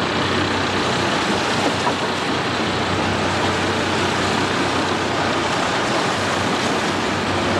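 Boat engine running with a steady low drone under rushing, splashing sea water churned up alongside the hull.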